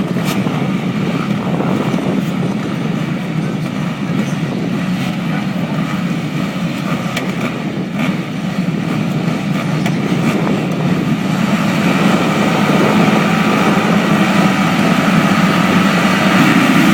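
Motocross bikes' engines running on the track, a dense continuous engine noise that grows louder in the second half.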